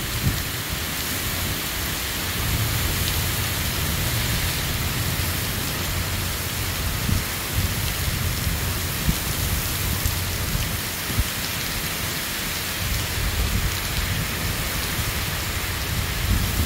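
Torrential rain pouring in a severe thunderstorm with violent, gusting wind, a low rumble swelling and fading underneath. A few brief sharp knocks stand out.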